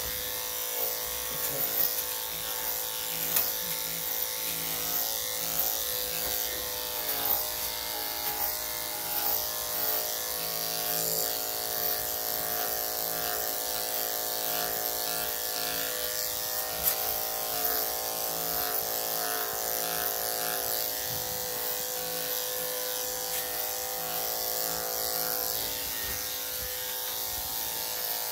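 Corded electric dog-grooming clipper running with a steady motor hum while its blade is worked through a Shih Tzu's coat, with small brief rises in loudness along the way.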